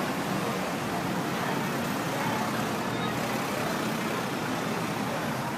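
Steady street traffic noise: a continuous wash of passing vehicles.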